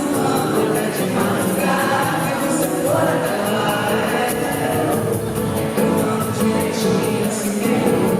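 Live pop band music with singing, which sounds choir-like, as if the audience is singing along.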